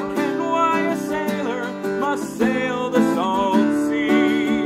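A man singing a folk sea song in long, wavering held notes, accompanied by a strummed acoustic guitar.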